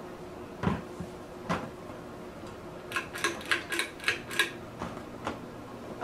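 Hampton Bay Gazebo ceiling fan running fast with a steady motor hum. Two dull thumps come in the first second and a half, then a quick run of about seven sharp clicks and knocks a little past the middle.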